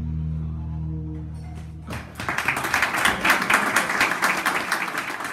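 A jazz quartet's final held chord, with double bass and saxophones, dies away over the first two seconds. Then the audience breaks into applause.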